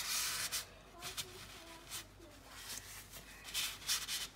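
Folded paper towel rubbing and dabbing over the freshly oiled surface of a Weber cast iron skillet, wiping off the excess oil before the pan goes into the oven to season. The soft papery strokes are loudest at the start and again near the end.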